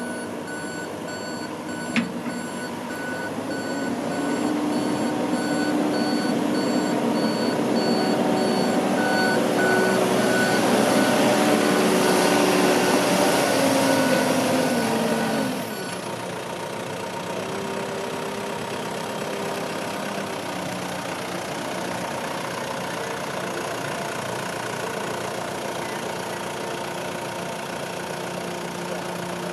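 Terex 760B backhoe's diesel engine revving up and holding high while its reversing alarm beeps steadily; about halfway through, the beeping stops and the engine drops back to a steady idle.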